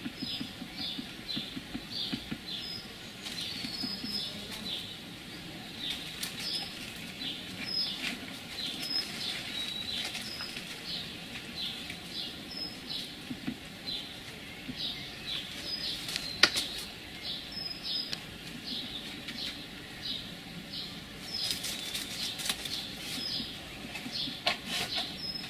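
Leaves rustling as a red fox cub noses and mouths at a plastic pot among brambles, with a few crisp clicks, one sharp one about two-thirds of the way through. Behind it runs a steady series of short high chirps, like a small garden bird calling over and over.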